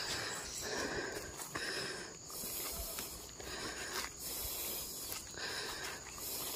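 A man breathing hard, about one breath a second, from the strain of carrying a heavy basket load of durians on his head, with footsteps rustling in dry leaf litter.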